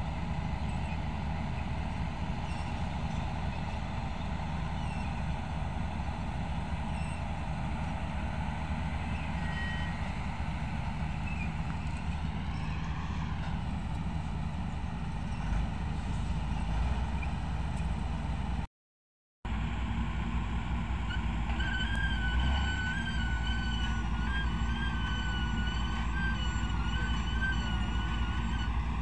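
Heavy diesel construction machinery, cranes, piling rigs and dump trucks, running together in a steady rumble, cut off for a moment about two-thirds in. After the break a high wavering whine sounds over the engine noise.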